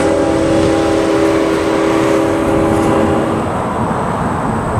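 Diesel locomotive horn on an approaching freight train: one long blast of several chimes sounding together, which cuts off about three and a half seconds in, over a steady low rumble.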